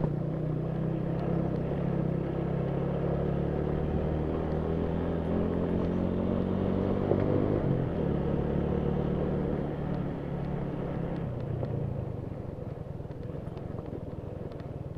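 Motorcycle engine running at a steady pace while riding a rough trail. Its note fades away about eleven seconds in.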